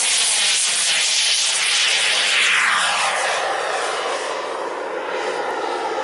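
Radio-controlled model jet's engine whining hard on take-off and climb-out. Its pitch drops as it passes, then fades slightly as it climbs away.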